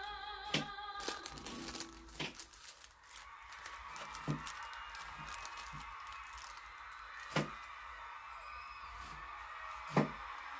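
Music with a singing voice that stops about a second and a half in. After it comes quiet room sound with a handful of sharp, separate clicks and taps, the loudest near the end.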